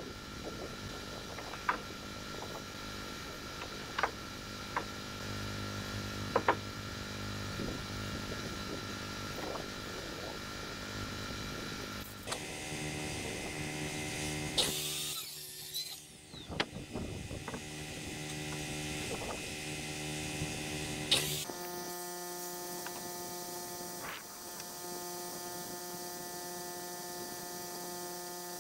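Portable generator engine running steadily, a constant hum whose pitch shifts twice. Scattered sharp clicks and knocks of tools and boards being handled on the wooden platform.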